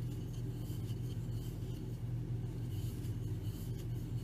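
Steady low background hum, with faint soft scratching of yarn being pulled through a crochet hook as a foundation chain is worked, a few times.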